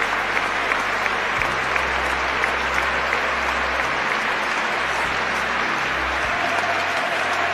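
Large stadium crowd applauding steadily, a sustained tribute applause, with a low steady drone underneath that shifts in pitch twice.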